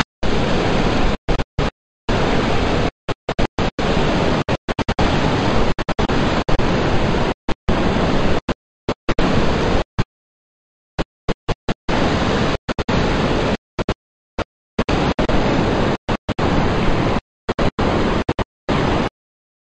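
Loud, even rushing of water pouring through sluice gates and flowing fast along a canal. The noise cuts out abruptly to dead silence many times.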